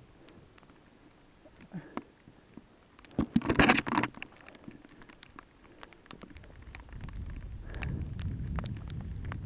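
Mountain bike rolling over a trail: scattered clicks and a loud short clatter about three and a half seconds in, then a low wind rumble on the microphone building from about seven seconds in.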